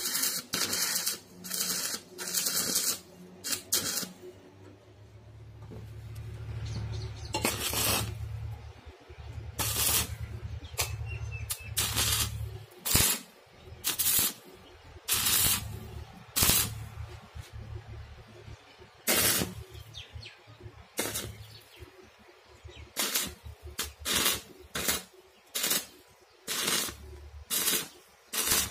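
Stick (arc) welding: the electrode arc crackling and sizzling in many short, irregular bursts as small steel pieces are tack-welded. A steady low hum runs under it through the middle stretch.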